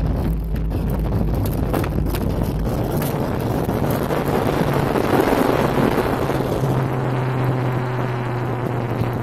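Cabin noise of a jet airliner rolling out on a wet runway just after landing: a loud, steady rumble of engines and wheels over a low hum. The roar swells about midway and eases off again near the end.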